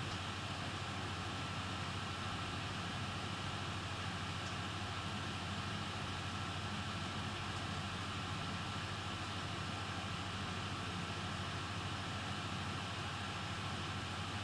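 Steady low hum and even hiss with a faint, constant high tone; no distinct knocks or clicks.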